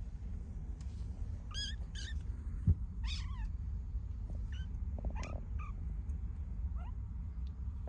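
Very young British Shorthair–Ragdoll mix kittens mewing while they play-fight: a string of short, high, squeaky mews, with a single thump a little under three seconds in.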